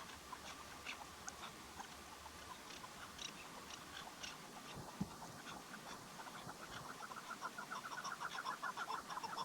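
Female chukar partridge calling: scattered short clucking notes, then from about seven seconds in a fast, even run of notes that grows louder. A single sharp knock about five seconds in.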